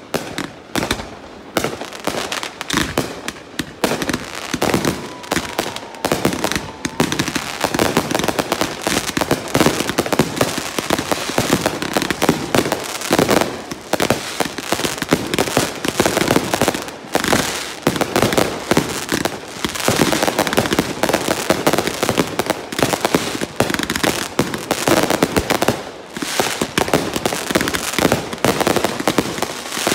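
Aerial fireworks going off in rapid succession: a dense, continuous run of bangs, pops and crackling from many shells bursting at once, growing thicker after the first several seconds.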